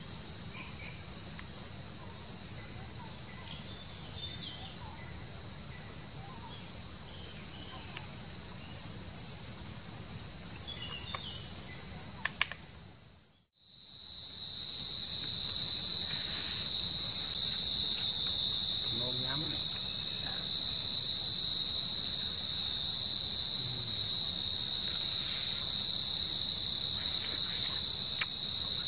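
A steady, high-pitched chorus of forest insects. It fades out about halfway through and comes back louder.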